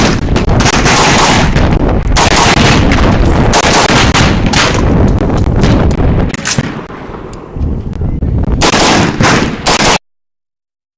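AR-15 rifle fired in quick pairs of shots (double taps), several pairs in a row. After a lull of about two seconds, more pairs follow, and the sound cuts off suddenly near the end.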